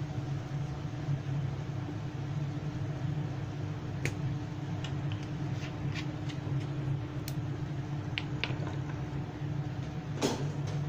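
Steady low hum of kitchen machinery, with a few faint, scattered clicks.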